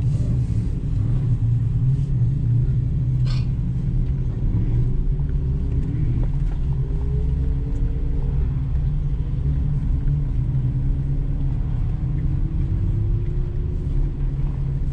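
A 2019 Jeep Wrangler JL driving along a dirt off-road track, heard from inside the cab: a steady low rumble of engine and tyres, with a faint engine note that climbs a little in the middle and eases off again.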